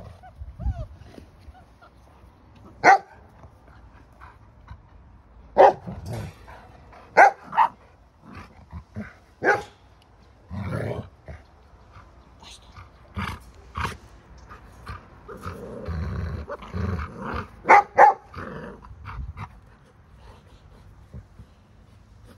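Golden retrievers barking in play: a string of short, sharp barks, some in quick pairs, with low growling in between.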